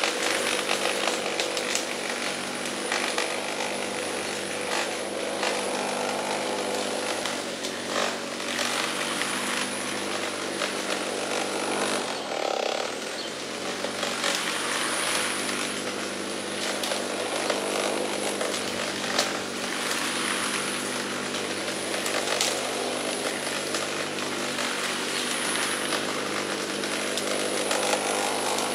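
Walk-behind gas lawn mower engine running steadily while cutting grass, its note dipping briefly about twelve seconds in.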